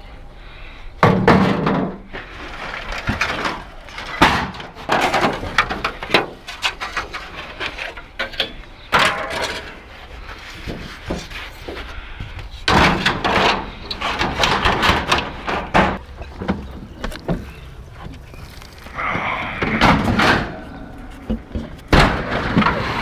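Scrap metal being loaded into a pickup truck bed: a series of irregular bangs, clanks and rattles of metal pieces hitting the bed and each other, the loudest about a second in.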